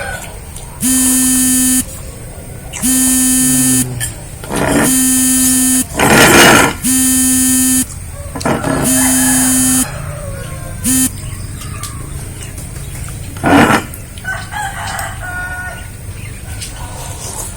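A buzzer-like horn sounding six times, each blast about a second long and roughly two seconds apart, with short noisy bursts between blasts. Quieter scattered sounds follow near the end.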